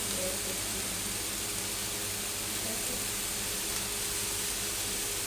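Whole lobsters and skewers sizzling on a stovetop grill pan: a steady hiss.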